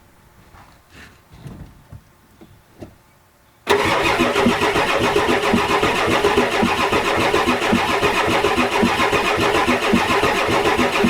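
A few faint knocks, then the starter suddenly begins cranking the 1993 Ford F-250's 7.3L IDI diesel engine in a steady, rhythmic churn without it catching, with ether in the intake and the glow plugs disconnected. The owner puts the no-start down to bad compression in some cylinders.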